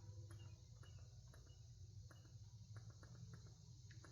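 Near silence: a low steady room hum with a few faint, scattered ticks.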